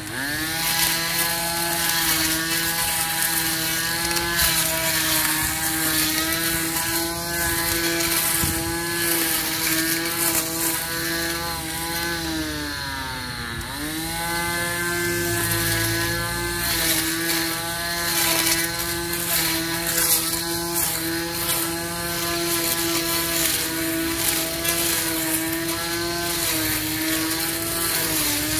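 Cordless battery-powered electric grass trimmer running with a steady high motor whine while it cuts through grass and weeds. About halfway through, the pitch sags for a moment and climbs back, and it dips briefly again near the end.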